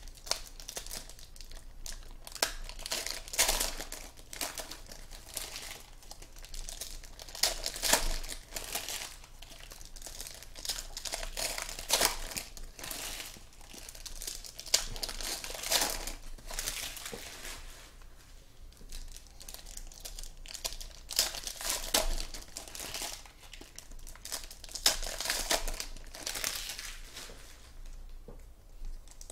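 Foil wrappers of 2014 Panini Contenders football card packs being torn open and crumpled by hand: a continuous, irregular crinkling with occasional louder crackles.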